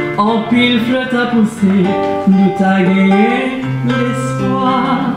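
A woman singing to an acoustic guitar accompaniment, holding some notes for about a second.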